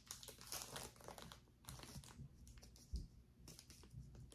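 Faint crinkling of plastic packaging and small scattered clicks of costume jewelry pieces being handled and sorted, with a soft thump about three seconds in.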